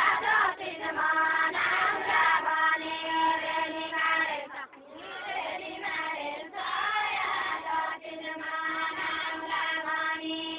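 A group of women singing a Deuda folk song together, unaccompanied, in long drawn-out phrases. There is a short break between phrases about halfway through.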